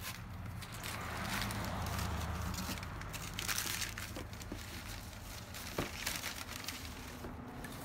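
White packing paper crumpling and tearing in bursts as it is pulled off and bunched around a cardboard box, with a few sharp clicks, over a low steady rumble.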